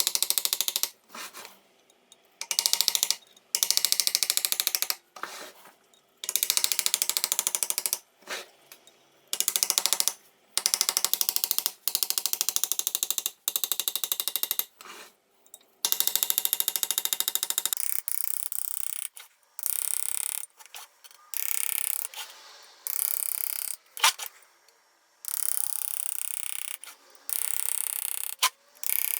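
Engraving tool cutting into a brass plate in repeated bursts of rapid ticking, each one to three seconds long, with short pauses between.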